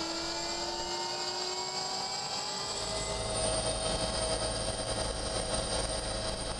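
Helicopter engine and rotor noise: a steady whine heard from inside the cabin, then about three seconds in the helicopter is heard from outside, with a deeper steady rumble as it hovers low.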